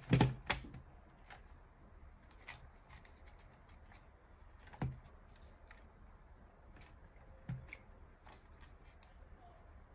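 Scattered light clicks and knocks of hands handling the opened plastic housing, circuit board and ribbon-cable connector of an Autel MP808 scan tool. The loudest come just after the start and about five seconds in.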